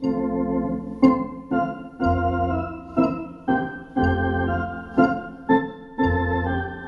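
Electronic organ with pedalboard playing a slow exercise: held chords with a new note about every half second to a second, each starting with a small key click, and a low pedal bass note entering every two seconds.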